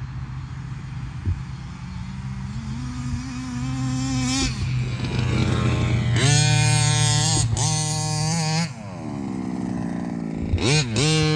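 Two-stroke petrol engine of a Rovan Baja 5B 1/5-scale RC buggy, running at a low steady speed and then revved up and down several times, with a sharp drop in pitch before it climbs again near the end.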